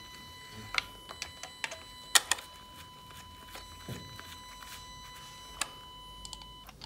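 Sharp metallic clicks and clacks of a compression tester's hose and quick-connect fitting being handled and moved between spark-plug holes on a VW 2.0 FSI engine head, the loudest about two seconds in. A faint steady high tone runs underneath and stops near the end.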